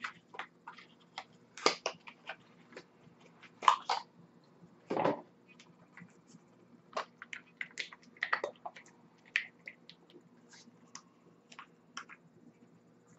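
Irregular small clicks and taps from an e-juice bottle and vape gear being handled, scattered through the whole stretch with a slightly longer scrape about five seconds in.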